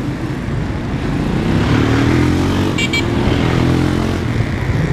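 Motorcycles running in city traffic over a steady road rumble. About a second and a half in, one engine revs up and then eases off over roughly two seconds. Two short high beeps come about three seconds in.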